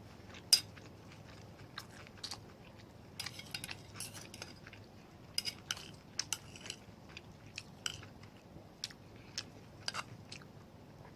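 Close-miked chewing of a mouthful of ginger beef and rice: wet mouth clicks and smacks scattered irregularly, with a sharp click about half a second in.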